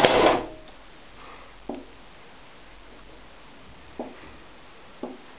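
Marker pen writing on a whiteboard: three soft taps as the tip meets the board, with faint squeaky strokes in between. A short burst of noise at the very start dies away within half a second.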